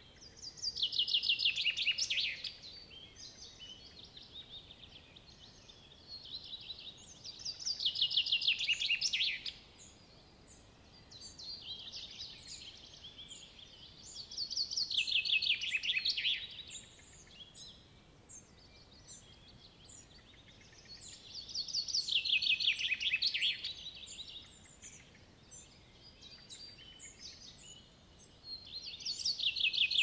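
Songbirds singing in a forest. One bird repeats a loud song, a fast run of notes falling in pitch that lasts about two seconds, five times at roughly seven-second intervals, while other birds chirp softly in between.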